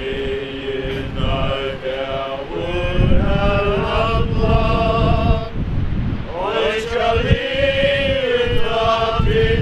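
Mourners singing a funeral hymn together in slow unison, holding long notes, with a short break before a new line about six seconds in. Low wind rumble on the microphone runs underneath.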